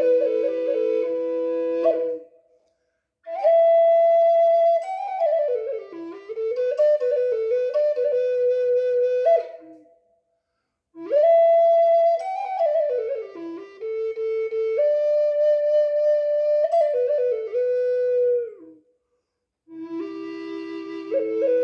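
Handmade Native American-style flute of rosewood and white beech, played in slow melodic phrases broken by three short pauses. In the opening and closing phrases two notes sound together.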